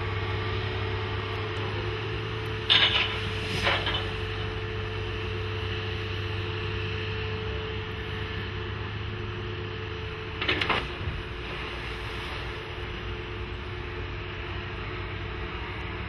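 Diesel engine of a Sennebogen 650 HD cable crawler crane running steadily with a constant hum as it works a dragline bucket. Short clatters break in twice close together about three seconds in and once more about ten seconds in.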